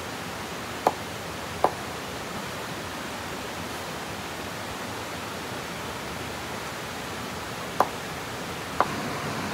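Steady rushing noise, like flowing water, with four sharp knocks: two about a second in and two near the end.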